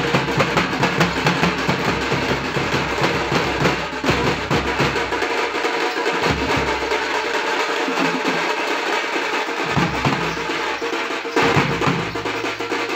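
Thappu frame drums beaten fast with sticks, over large barrel bass drums struck with curved sticks. The deep bass drums thin out through the middle and come back in strongly a little before the end.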